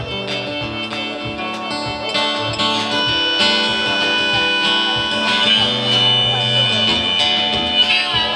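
Live blues band playing an instrumental passage: a steel-string acoustic guitar with a drum kit keeping a steady beat.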